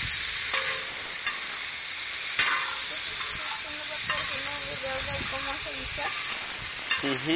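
Chopped vegetables sizzling in oil in a large metal pan, with metal utensils scraping and clacking against the pan several times as they are stir-fried.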